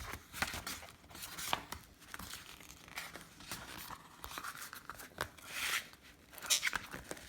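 Paper rustling and crinkling in short, irregular bursts as the pages of a picture book are handled and turned.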